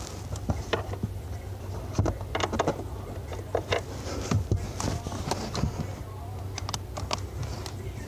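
Irregular clicks and light knocks of hands handling plastic and metal parts under a car's dashboard around the accelerator pedal assembly, over a steady low hum.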